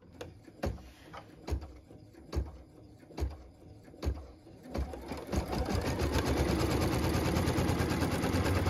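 Embroidery machine stitching a cut line through layered quilt fabric in the hoop. A few separate clicks come about a second apart, then about five seconds in it settles into fast, steady stitching.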